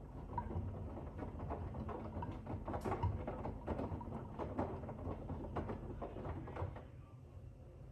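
Grundig FIBERCatcher front-loading washing machine drum turning, with wet laundry tumbling and water sloshing in repeated knocks and splashes over a steady low hum. The knocking dies down about seven seconds in.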